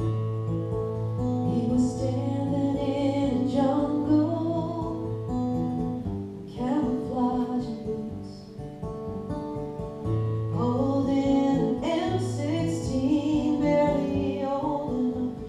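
A woman singing over acoustic guitars that are strummed and picked beneath her voice. Her sung lines break briefly about six and ten seconds in, leaving the guitars alone.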